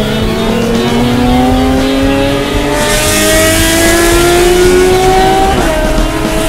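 BMW E46 M3 race car's S54 straight-six accelerating hard, heard from inside the cockpit. Its pitch climbs steadily and drops twice on upshifts, about a third of the way in and again near the end, with a loud rush of wind and road noise in the middle.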